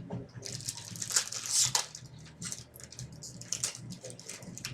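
Foil trading-card pack wrapper crinkling and tearing, with cards sliding and rustling against each other; the loudest crinkling comes about a second and a half in.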